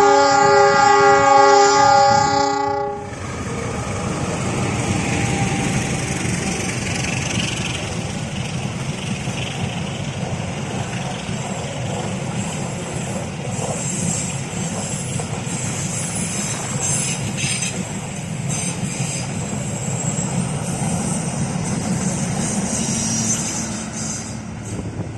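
Train horn sounding a chord of several tones for about three seconds, then the steady rumble and clatter of a KAI passenger train's wheels on the rails as the coaches pass.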